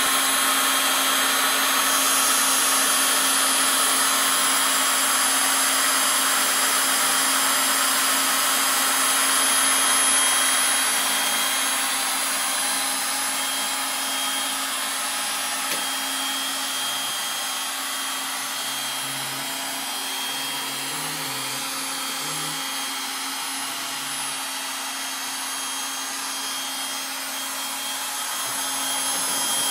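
HOB-CNC engraving machine's spindle motor running at speed while engraving: a steady hissing whine with a constant hum underneath, easing slightly in level partway through.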